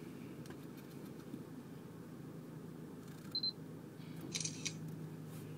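Low, steady rumble of a vehicle idling, heard from inside the cabin, with light handling noise on the camera. There is a short high beep about three and a half seconds in and a brief rustle about a second later.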